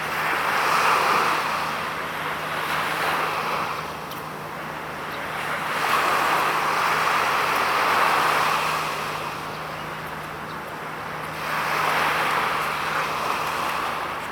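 Waves breaking on a beach: the wash of surf swells and falls back three times, about every five to six seconds, over a faint steady low hum.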